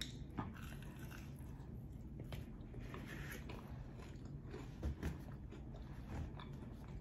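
Close-miked mouth sounds of a person biting into and chewing a soft cheeseburger: faint wet smacks and clicks. There is a slightly louder knock about five seconds in.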